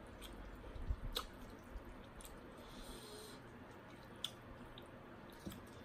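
Faint eating sounds: a metal fork and spoon clicking a few times against a glass bowl as curry-soaked rice noodles are lifted, with soft wet mouth sounds and breathing.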